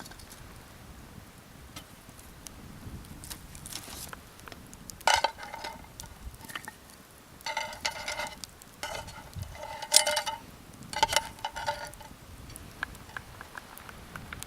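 Metal utensil scraping and clinking against a metal cooking pot in several short ringing bouts, as a stew is stirred.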